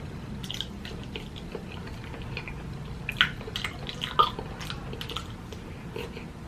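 Close-miked eating: wet chewing with irregular small mouth clicks and smacks, two of them sharper about three and four seconds in.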